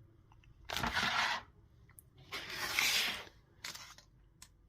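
A utensil scraping against a dish as food is spread out: two scrapes about a second each, with a few light clicks.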